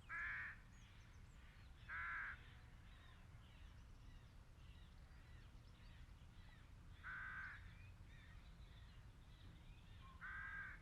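A bird calling faintly: four short calls spaced a few seconds apart, against near silence.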